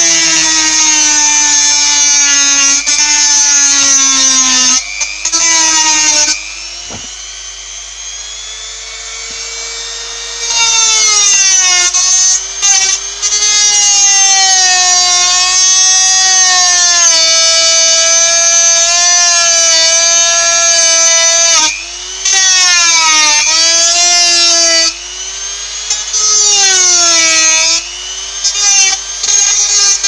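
Dremel-type rotary tool with a metal cut-off disc cutting through a metal anchor bolt. It makes a high whine whose pitch sags each time the disc bites into the metal and climbs back as the pressure eases. The whine goes quieter for several seconds about a third of the way in, and it drops out briefly a few times near the end.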